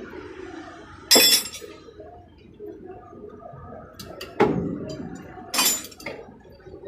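Metal clanking and clinking from tools and parts in a truck repair job. There are three loud hits: a sharp one about a second in, a heavier one with a ringing tail around four and a half seconds, and another sharp one near six seconds, with light clicks in between.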